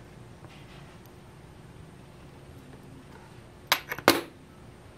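Small parts and a hand tool being handled on a wooden tabletop: a quick run of about four sharp clicks and taps a little before the end, the last the loudest.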